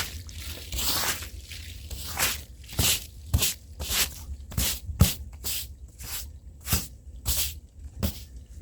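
Scrub brush worked by hand over a rug's fibers in quick back-and-forth strokes, about two a second.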